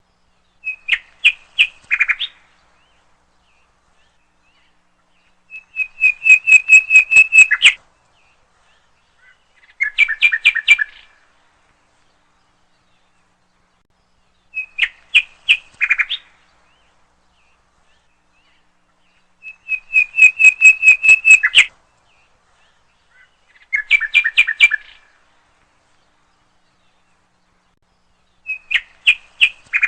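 A bird singing in short phrases of rapid, sharp repeated notes, each phrase one to two seconds long with a few seconds of silence between them. The same three phrases come back in the same order about every fourteen seconds.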